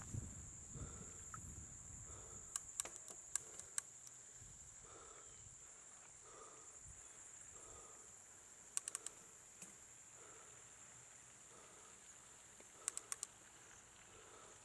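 Insects, crickets by their tags, trilling in a steady high drone. Three short clusters of sharp clicks cut in: about two seconds in, near the middle, and near the end.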